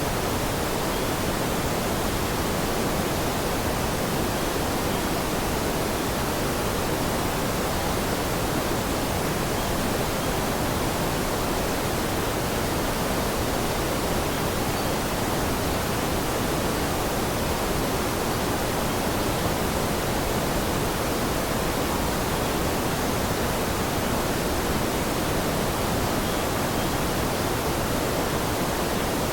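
Steady rushing water, an even hiss that carries on without change and has no separate drops, splashes or other events in it.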